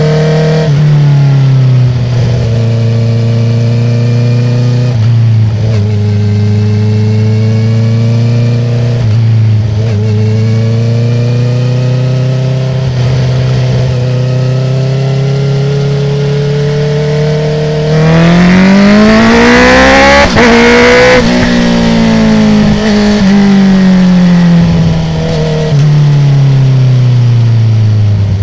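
Honda CB650R's inline-four through a full Akrapovic titanium exhaust with the dB killer removed, heard from the rider's seat: the engine runs at steady revs with brief dips now and then, then about 18 seconds in rises sharply in pitch under hard acceleration for about three seconds, and falls steadily as the bike slows.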